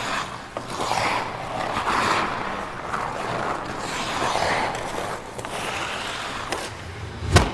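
Hockey skates scraping and carving on ice in repeated swishing strides, then a single sharp crack near the end as the puck is shot.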